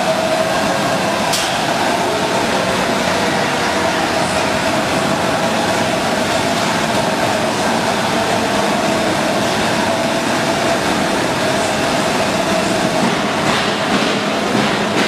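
Commercial popcorn machine running: a steady mechanical rumble and hiss with a constant hum.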